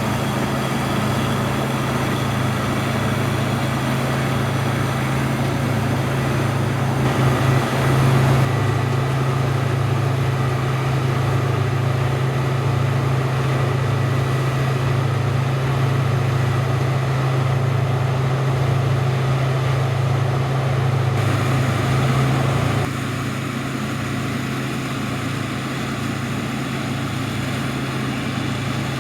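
Large diesel harvest machinery running steadily with a deep, pulsing hum. The sound shifts abruptly about eight seconds in and again at about twenty-three seconds.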